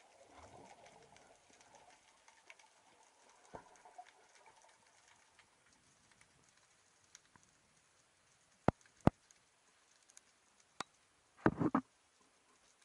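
Underwater sound: a faint steady crackle, two sharp clicks about a third of a second apart roughly nine seconds in, and a short cluster of louder knocks near the end.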